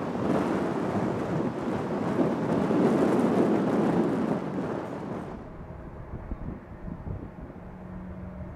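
Loud engine noise of a jet airliner, strongest about three seconds in, which cuts off abruptly after about five seconds. A quieter low rumble follows, with a faint steady hum near the end.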